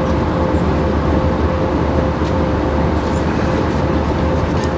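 Steady cabin noise of an Airbus A320 in flight, heard from a passenger seat: an even rush of airflow and engine noise with a faint steady hum.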